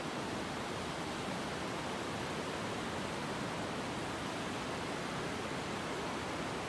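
Ocean surf washing in over a flat sand beach, a steady, even rushing with no single wave break standing out.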